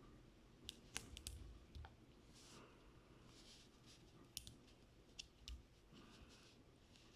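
Faint, irregular clicks and a couple of brief scrapes from a plastic toy bulldozer being handled and its parts worked.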